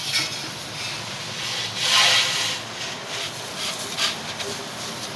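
Irregular rough rubbing and scraping strokes of hand work on a washing machine drum, the loudest about two seconds in.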